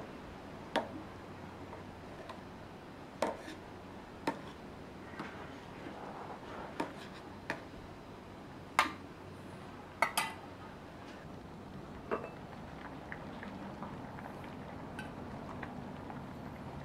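Kitchen dishes and utensils clinking and knocking now and then: about eight sharp, separate clinks at irregular intervals, over a low steady background.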